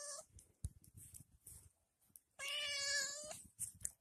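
Red fox whining: two long, high, meow-like calls of about a second each, one at the very start and one about two and a half seconds in.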